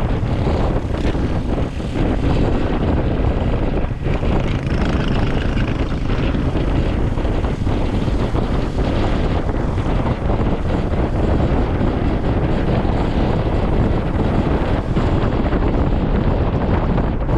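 Steady wind rush over the microphone of a camera on a moving Honda ADV160 single-cylinder scooter, with the scooter's running and road noise beneath.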